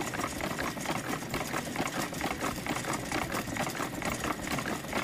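Automatic noodle dough-rolling machine running: its rubbing board, driven back and forth by an eccentric wheel, makes a fast, even mechanical clatter of several knocks a second.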